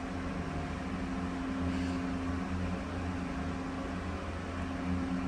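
Steady hum of a Toshiba hydraulic elevator running: a low drone with a steady mid-pitched tone over it.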